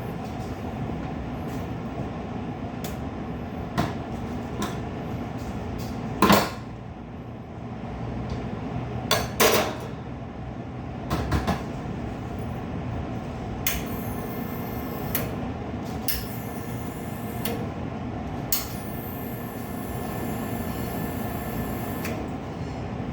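Metal knocks and clicks from tools working at a BFC espresso machine's group head as the group gasket and shower screen are taken out, over a steady hum. The loudest knock comes about six seconds in, with a double knock a few seconds later, and there are two stretches of hissing in the second half.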